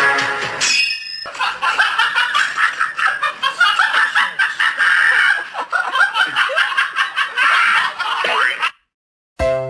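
High-pitched laughter and giggling in quick, choppy peals, starting about a second in and stopping abruptly shortly before the end.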